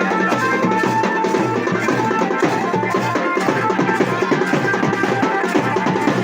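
Garhwali wedding band music: rapid, dense drumming under a held melody line.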